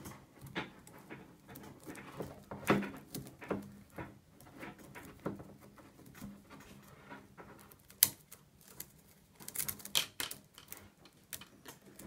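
Irregular light clicks and rustling of plastic fiber-optic buffer tubes rubbing and tapping against each other as they are untwisted by hand from the cable's central strength member, with one sharper click about eight seconds in and a quick flurry of clicks soon after.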